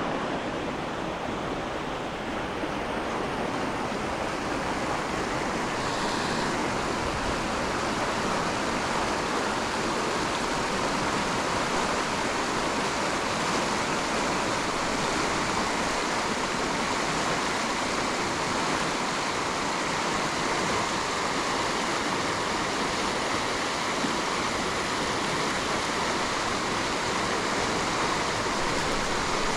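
River water rushing steadily, an even unbroken sound of flowing current.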